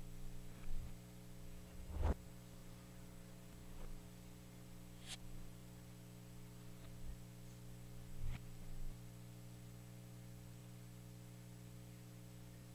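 Faint, steady mains hum, as from a guitar amplifier switched on, with a few faint clicks and knocks, the loudest about two seconds in.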